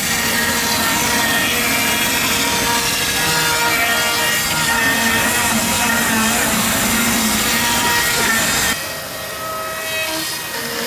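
Chainsaw cutting down into a gold-leaf-covered panel, a steady loud cutting noise that cuts off suddenly near the end.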